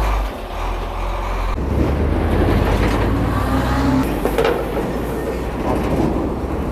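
Heavy truck's diesel engine running as the truck drives off and passes, a deep steady rumble that shifts in tone about a second and a half in.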